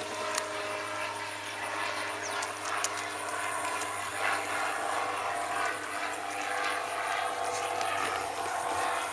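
A steady low hum, like a motor running, under a broad shifting outdoor noise with a few faint clicks.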